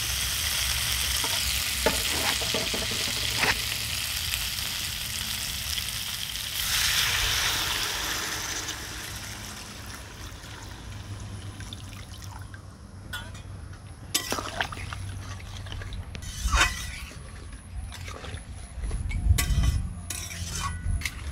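Fish heads and potatoes sizzling in spiced oil in a metal kadai, with a few clicks of a metal spatula against the pan. About a third of the way in, water is poured into the hot pan: the sizzle rushes up loudly, then dies down to a quiet simmer with occasional spatula knocks.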